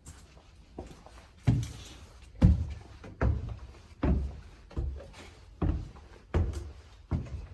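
Footsteps at a steady walking pace: a heavy thud about every three-quarters of a second, starting about one and a half seconds in.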